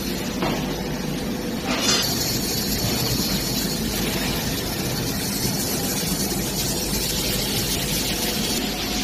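Small tabletop drum coffee roaster running: a steady rush from its blower and gas burner. There is a sharp metallic clack about two seconds in.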